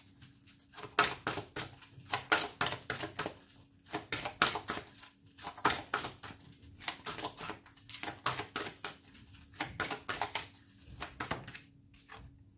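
Oracle cards being shuffled and handled, a fast irregular run of crisp riffling and flicking strokes that thins out near the end, over a faint steady hum.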